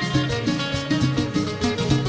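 Instrumental Moroccan Amazigh folk music played live: a banjo melody over a steady, fast beat of hand drums and metal qraqeb castanets.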